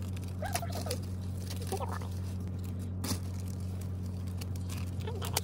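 A thin plastic shopping bag rustling and crinkling while shrink-wrapped albums are handled and pulled out of it, over a steady low hum inside the car's cabin.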